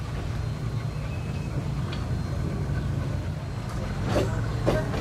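2-8-2 Mikado steam locomotive and its train on the move: a steady low rumble, with two short, sharp noises about four seconds in.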